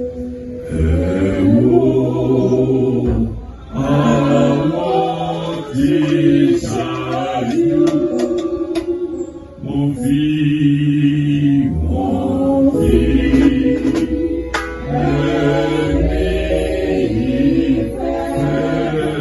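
Church congregation singing a short hymn in sung phrases, with brief pauses between lines.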